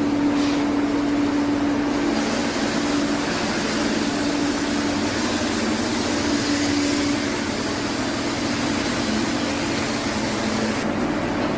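Engine running steadily, a continuous mechanical drone with a steady hum under it.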